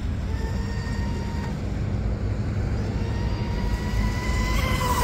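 Electric brushless motor of an RC mono hull boat running at speed, a thin steady whine whose pitch bends up near the end. A steady low rumble runs underneath.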